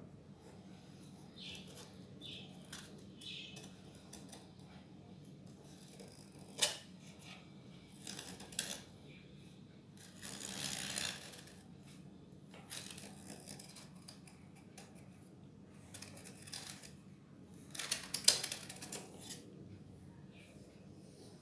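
Knife blade scraping and clicking against the inside wall of a metal pudding tin as it is run around the edge to loosen a set caramel pudding. The sounds are faint and scattered: a few sharp clicks, a longer scrape about halfway through, and a cluster of clicks near the end.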